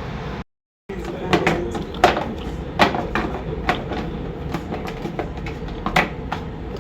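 Steady vehicle running noise for half a second, cut off abruptly. Then a run of irregular light knocks and taps, about a dozen in five seconds, over a steady hum.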